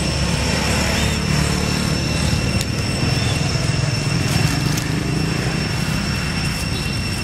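Steady low rumble of road traffic, a motorbike passing on the road, with a thin, steady high-pitched whine over it.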